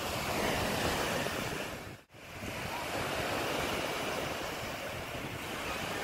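Small sea waves washing onto a sandy beach, a steady rush of surf. About two seconds in the sound drops out for a moment and comes straight back.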